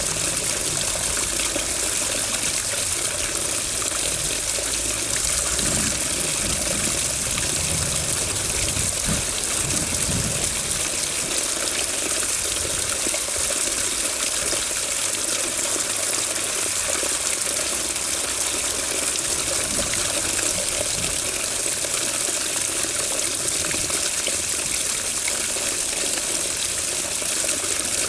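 Water running steadily, an even hiss with no breaks.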